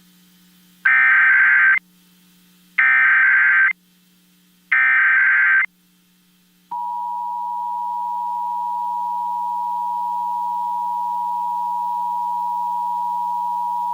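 Emergency Alert System test: three short bursts of digital SAME header data, each about a second long with about a second between them. About seven seconds in, the steady two-tone EAS attention signal (853 and 960 Hz) starts, opening a required weekly test.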